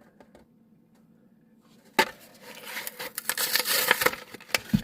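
Hot Wheels blister pack being opened: a sharp snap about two seconds in, then a run of crackling and scraping as the plastic blister is pulled from the card.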